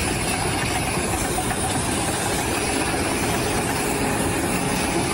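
Steady engine or machinery noise, running without change.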